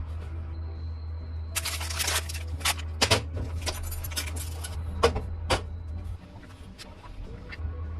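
A series of sharp knocks and clicks, with a short noisy rush about two seconds in, over a steady low hum.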